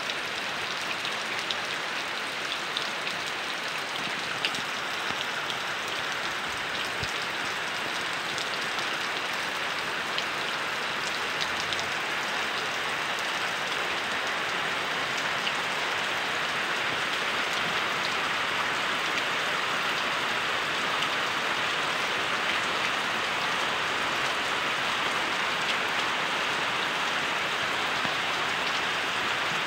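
Heavy rain falling steadily, an even hiss with scattered drop ticks, a little louder in the second half.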